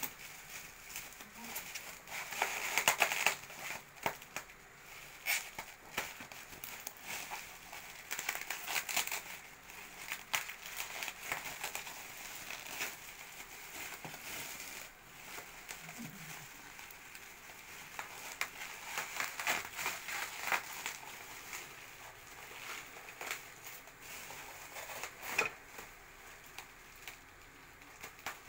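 Bubble wrap being handled and pulled: plastic crinkling and rustling in irregular bursts with sharp crackles.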